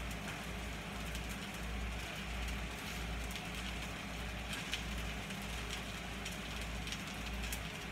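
Steady frying sizzle of grease-dipped corn tortillas on a hot comal and shredded chicken in a frying pan, with a few faint ticks from the tongs.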